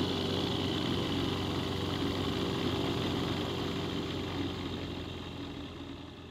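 Light aircraft's piston engine and propeller idling steadily, fading away over the last couple of seconds.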